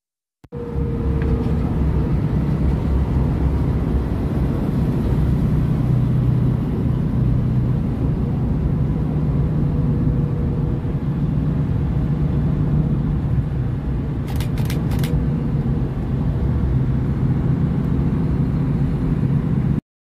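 Steady engine and road noise of a vehicle driving on a highway: a continuous low hum with a faint steady whine above it. Three quick sharp clicks come about fourteen to fifteen seconds in.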